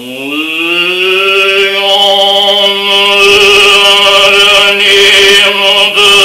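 A man's voice chanting one long held tone that slides up in pitch as it starts, then stays steady.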